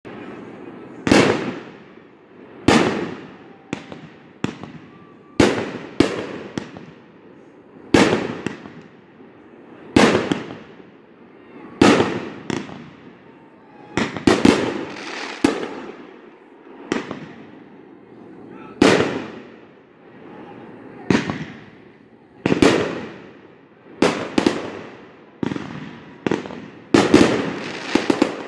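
Aerial fireworks shells bursting one after another, a sharp bang every second or two, each followed by a fading rumble of echo.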